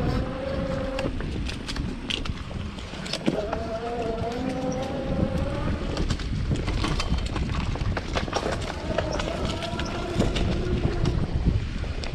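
Electric bike hub motor whining under power in three stretches, its pitch creeping up as the bike gathers speed. Under it are a low rumble and frequent rattles and knocks from the bike rolling over a rough dirt trail.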